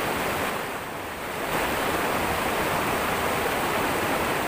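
River water rushing over rocks in a small rapid, a steady rush that drops briefly about a second in.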